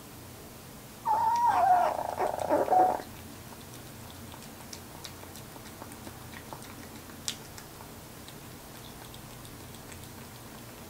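A young kitten, about six weeks old, gives one threatening growling yowl of about two seconds while crouched over its food bowl. It starts about a second in, wavers and then drops in pitch, a sign of a hungry kitten guarding its food. Faint clicks of eating follow.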